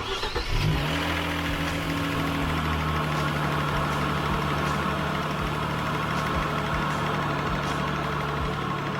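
2018 Kia Stinger GT's 3.3-litre twin-turbo V6, breathing through a newly fitted K&N cold air intake, is cranked and fires up within the first second. It then runs at a steady idle.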